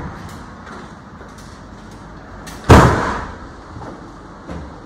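A single loud bang a little under three seconds in, dying away over about half a second, over a faint steady background.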